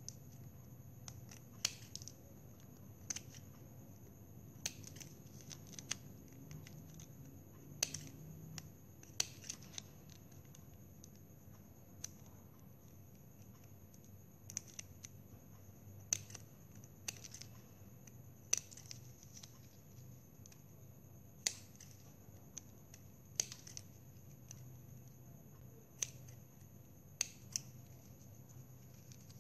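Small spring-loaded thread snips cutting through plastic drinking straws: short, sharp snips, irregularly spaced, about one every second or two.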